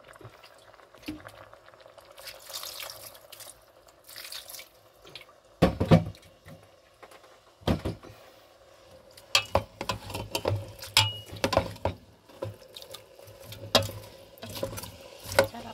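A little water splashing into a stainless steel pot of stir-fried bitter melon and beef, then a spoon stirring and knocking against the pot, with a low steady hum underneath. The loudest knocks come about six and eight seconds in, and quicker clinks follow to the end.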